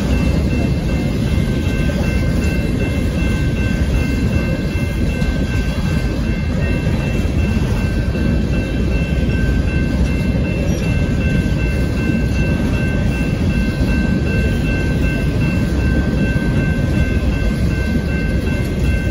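A BNSF coal train's open-top coal cars rolling past: a steady rumble of steel wheels on the rails, with a steady high ringing over it.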